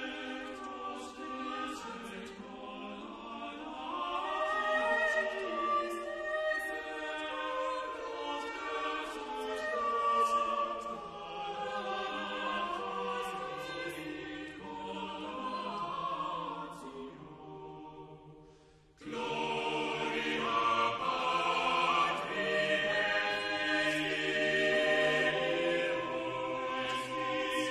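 Background choral music: a choir singing slow sustained chords. It fades out about two-thirds of the way through, and a new sung passage starts a moment later.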